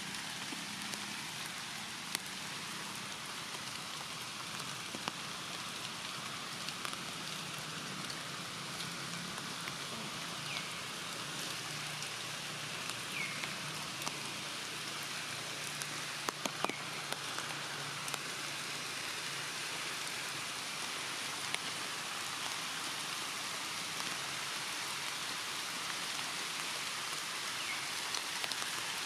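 Steady rain falling on forest leaves, with scattered drops ticking close by and a few louder ticks about halfway through.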